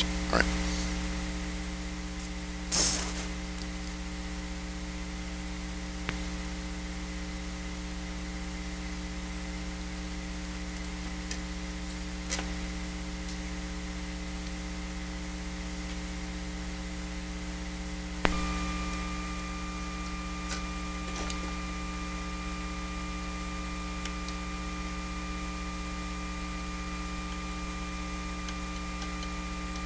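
Eurorack modular system's output carrying a steady mains-type hum and buzz, the noise the owner traces to the case's switching power supply. Sharp clicks come as modules are plugged back into the bus board, and after one about eighteen seconds in, a thin higher whine joins the hum.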